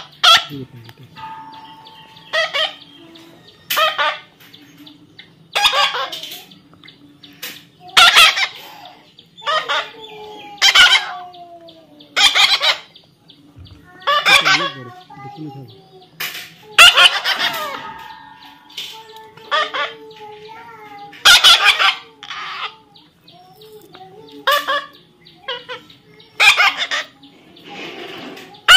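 Pet parrot screeching over and over, harsh loud squawks every second or two, with a few falling whistled notes between them.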